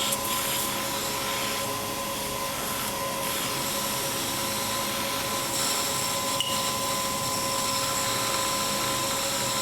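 A machine running steadily, an even hiss over a constant hum, with one faint click about six and a half seconds in.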